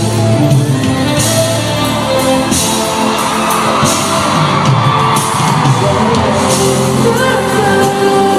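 Live pop band music in a large arena, with the crowd cheering and screaming over it.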